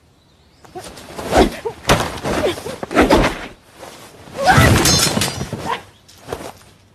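Several loud crashes with breaking and shattering, one after another for about five seconds.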